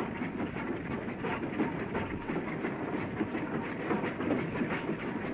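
Goods train running along a single-track branch line, heard from the locomotive footplate: a steady rumble with a quick, uneven clatter of wheels over rail joints.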